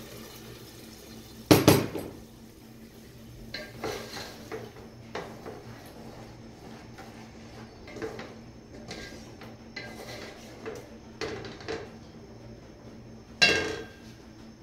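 Stirring boiled chickpeas into masala in a steel cooking pot with a wooden spoon: scattered knocks and scrapes against the pot, with two loud clanks, one about a second and a half in and one near the end.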